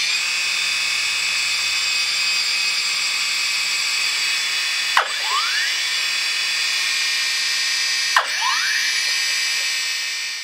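DJI Phantom 2's brushless motors revving without propellers, a steady high-pitched whine. Twice, about five seconds in and again about three seconds later, a sharp thump and the whine drops away and sweeps back up: the motors stalling as the motor and ESC protection kicks in, which DJI calls normal when the motors run above idle with no props.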